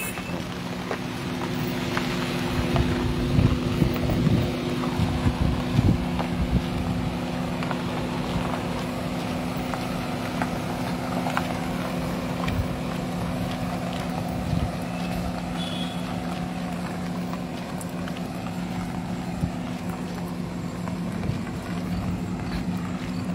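Car driving on a rough dirt road: a steady engine and road drone with wind buffeting the microphone. Several knocks from bumps come in the first few seconds.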